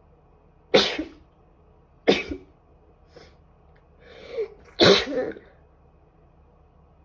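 A woman sneezing three times, with a drawn-in breath before the third sneeze.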